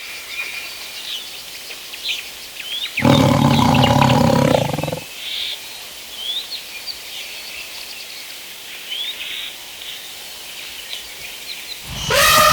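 A big cat roars once, a loud low call of about two seconds a few seconds in, over a steady background of short rising bird chirps. Another loud pitched call starts near the end.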